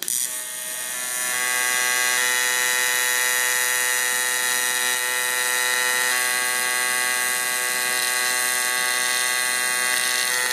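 AC TIG welding arc from a Lincoln Electric Aspect 230 on 6061 aluminium, set to 125 Hz with auto balance on: a steady, high buzz at the AC frequency. It strikes sharply at the start and swells over the first second or two as the amperage comes up, then holds level.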